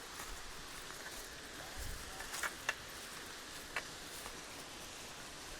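Steady rush of falling water from a waterfall, with a few short sharp clicks or knocks around the middle.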